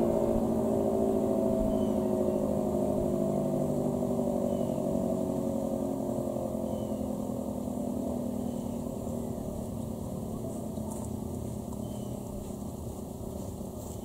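Federal Signal Model 5T storm siren winding down: its tone slides slowly lower in pitch and fades as the chopper coasts toward a stop.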